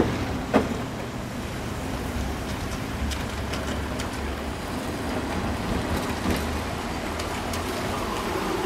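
Slow-moving narrow-gauge train running along the track, heard from aboard as a steady rumble, with two sharp knocks in the first second and scattered faint clicks.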